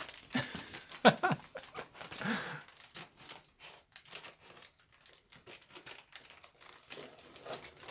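Thin plastic shrink-wrap crinkling in soft, irregular crackles as a cat walks around with it wrapped around its body. A few short pitched sounds and one sharp click come in the first second and a half.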